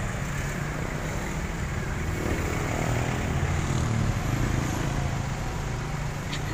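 Road traffic passing along a street, a steady low rumble of vehicle engines and tyres.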